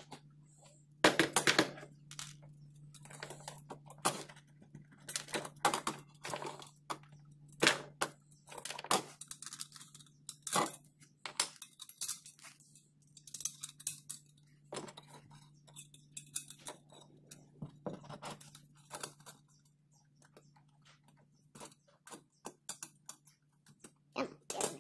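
Metal exhaust heat-muff parts being handled and fitted onto an exhaust pipe: irregular clinks, clicks and knocks of metal on metal, over a steady low hum.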